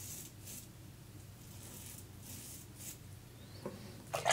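Leningrad-1 double-edge safety razor scraping through lathered stubble in several short, faint strokes. A couple of louder knocks come near the end.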